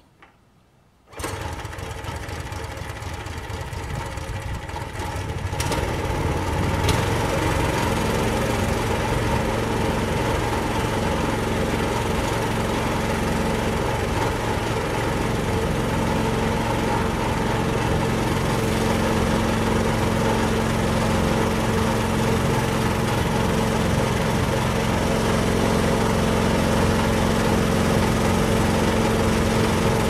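Homemade bandsaw mill's small engine starting about a second in, running up to speed a few seconds later, then running steadily with a constant hum.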